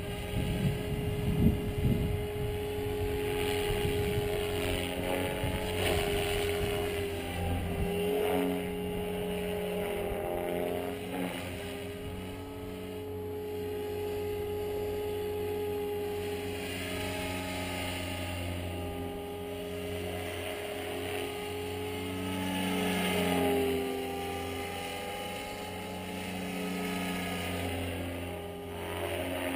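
SAB Goblin 500 radio-controlled helicopter in flight: a steady whine from its motor and spinning rotor blades, rising and falling in pitch and loudness as it manoeuvres.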